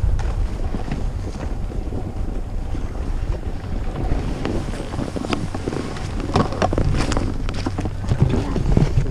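Wind rumbling steadily on the camera microphone while a snowboard slides over packed snow. In the second half there is a run of short scrapes and clatters from the board on the snow.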